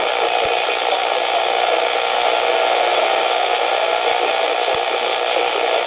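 Steady hiss of radio static from a weak, distant broadcast, heard through a receiver's narrow-band audio, with a couple of faint clicks.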